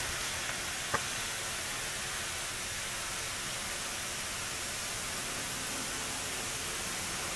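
Steady hiss of background noise, with one short sharp click about a second in.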